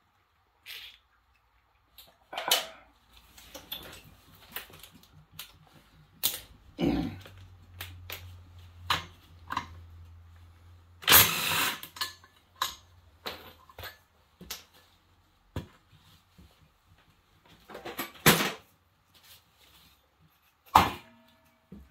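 Hand tools and metal parts clinking and knocking during work on an engine teardown: a string of separate clicks and clanks, the loudest about halfway through, with a low hum for several seconds in the middle.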